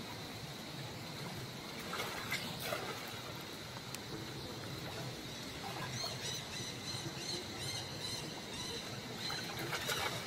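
Water splashing and sloshing as macaques wade and scramble in shallow water at a stone edge, with a sharper splash just before the end. Under it runs a steady low hum, and from about halfway faint high chirps repeat.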